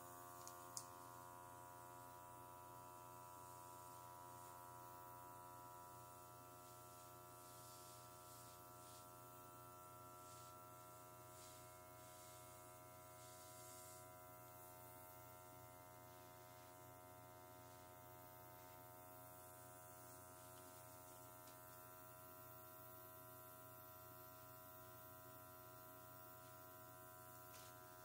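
Near silence: a faint steady electrical hum, with a few faint short hisses in the first half.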